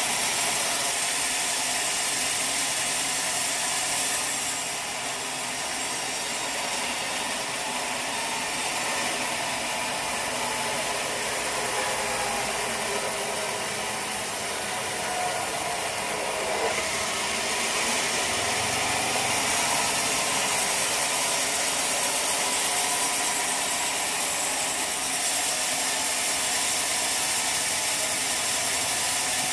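Sawmill machinery running with a steady mechanical noise, with small shifts in tone near 5 s and again near 17 to 19 s.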